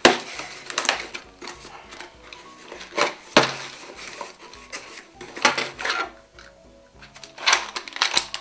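A cardboard box being cut open with a utility knife and unpacked: irregular sharp scrapes and crackles of tape, cardboard flaps and plastic wrapping as the parts are lifted out. Quiet background music runs underneath.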